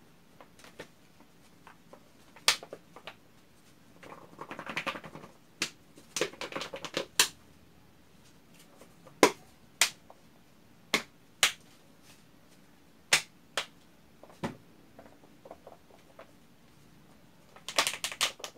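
Plastic bottle of glue and liquid-detergent slime mix being shaken by hand: scattered sharp knocks and clicks, with quick rattling runs about four seconds in, again about six seconds in, and near the end. The shaking mixes the glue and detergent so the contents set into slime.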